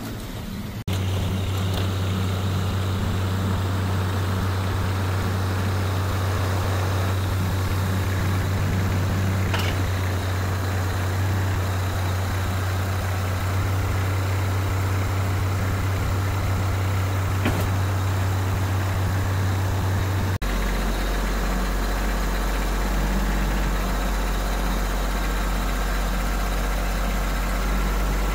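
Kubota tractor's diesel engine running steadily at idle. About twenty seconds in the sound changes abruptly to a deeper, steady engine note.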